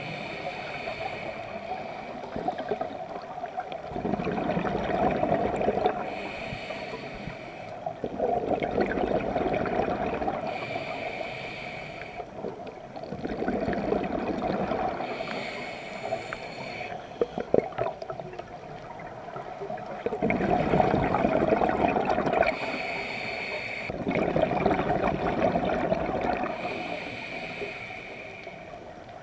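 Scuba diver breathing through a regulator, heard underwater: a hissing inhale followed by a longer bubbling exhale, about six breaths a few seconds apart.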